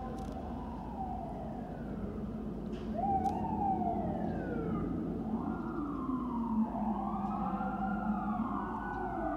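Fire truck sirens approaching, several overlapping wails sliding up and down in pitch, louder from about three seconds in, over a steady rumble of traffic.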